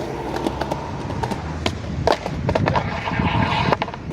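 Skateboard wheels rolling on concrete, with several sharp clacks of the board, the loudest about two seconds in, during a blizzard flip attempt on a skate park hip.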